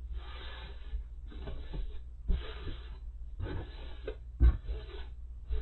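Rustling from quilt fabric being handled: irregular swishes with a few soft low bumps about two, four and a half, and five and a half seconds in.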